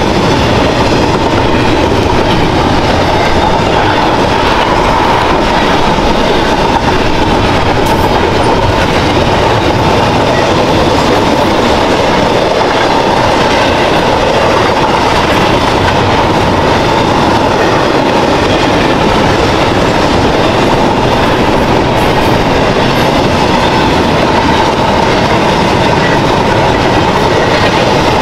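CSX double-stack intermodal freight train's container cars rolling past, loud and steady, with the wheels clattering over the rails.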